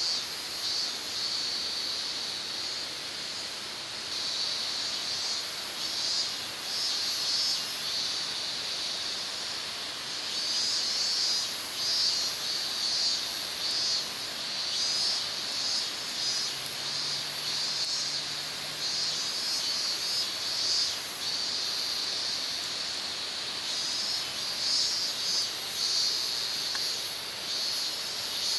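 A steady chorus of insects buzzing and chirping, pulsing unevenly in two high-pitched bands.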